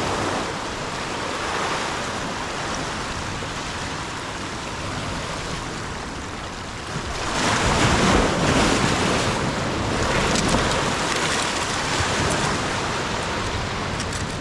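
Surf washing onto the shore, with wind buffeting the microphone; a louder wave surges in about seven seconds in.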